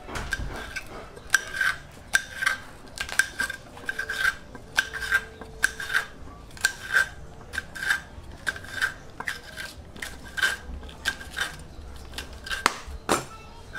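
A metal utensil scraping and striking a metal pan, about two strokes a second, each stroke leaving a short ringing note.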